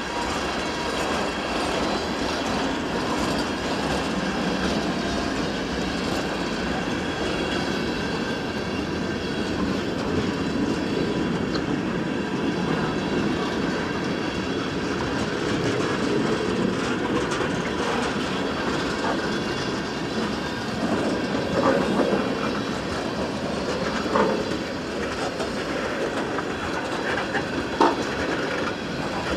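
Freight train cars rolling past: continuous rumble and clickety-clack of steel wheels on the rails, with a faint wheel squeal and a few sharper clanks in the last third.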